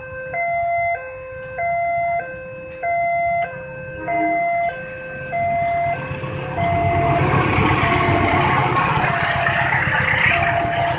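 Railroad level-crossing warning alarm sounding two alternating electronic tones, switching about every 0.6 s. From about six seconds in, a passing rail vehicle's rumble and rail noise build up and become the loudest sound, partly covering the alarm.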